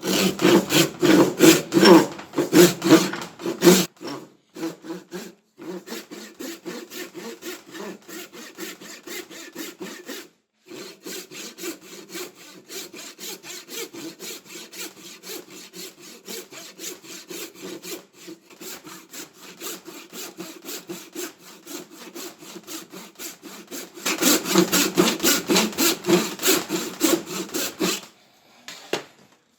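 Hand saw cutting through an ash blank in steady back-and-forth strokes, about three a second. The strokes are loud at first, quieter through the middle with a few short pauses, loud again near the end, then stop.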